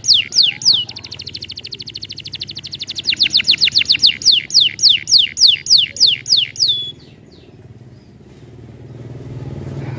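Canary singing: a run of loud notes that each sweep steeply downward, about three a second, broken by a fast, buzzing trill, with the song stopping about seven seconds in. A low hum grows near the end.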